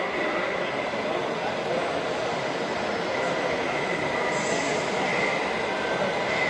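Steady mechanical running noise with a thin, steady high whine over it.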